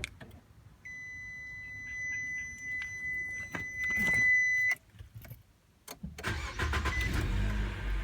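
A steady high-pitched beep lasting about four seconds, then about six seconds in the 2013–2014 Nissan Sentra's 1.8-litre four-cylinder engine cranks and catches, running on at idle with a couple of short chirps. It is being remote-started from the factory key fob through an aftermarket remote start module.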